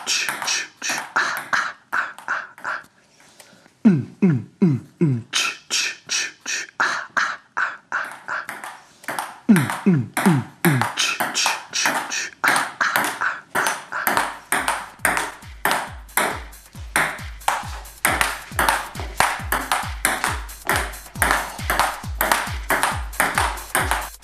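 Electronic music with a rapid, even beat of sharp ping-like clicks, about three a second. Twice a run of four or five quick falling bass tones sweeps down, and a steady low kick pulse joins about 14 seconds in.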